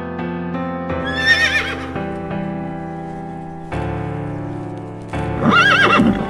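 Horse whinnying twice with a trembling, wavering pitch: a short call about a second in, then a longer, louder one near the end, over background music.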